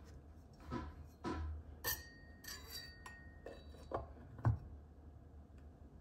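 Steel kitchen knife clinking and knocking against the knife block and the other knives as it is fitted into a slot: a string of light knocks, one about two seconds in followed by a short metallic ring.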